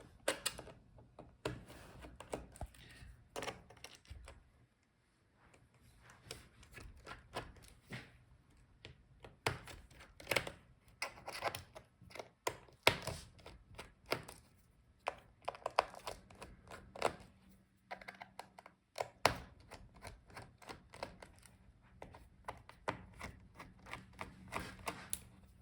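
Small T4 Torx screwdriver backing out the bottom-case screws of a laptop: irregular light clicks and taps of the bit and screws against the case, with a short lull a few seconds in.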